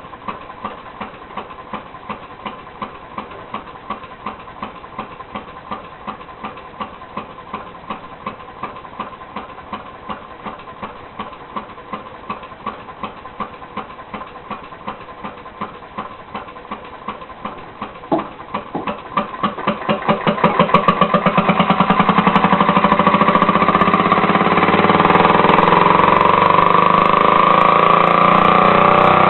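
Leaf blower engine converted to a compressed air motor with a timed air valve, puffing slowly and evenly at about two beats a second. About two-thirds of the way through it speeds up quickly into a fast, much louder steady run.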